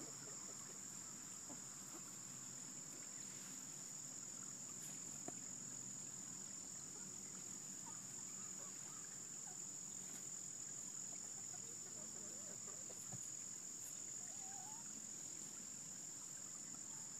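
Faint, steady, high-pitched chirring of insects, unbroken throughout.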